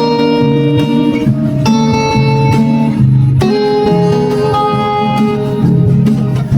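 Background music carried by a plucked, guitar-like melody of held notes over a bass line.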